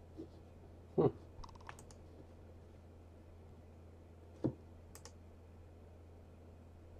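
A few isolated key taps and clicks on a computer keyboard, the loudest about a second in and another sharp one about four and a half seconds in, over a faint low hum.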